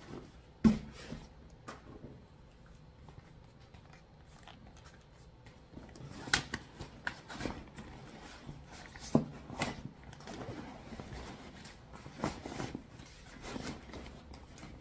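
Handling noise of a nylon tote bag being packed: rustling fabric and scattered knocks and bumps as a purse organizer and a laptop are pushed into it. The sharpest knock comes just under a second in, with others around six and nine seconds.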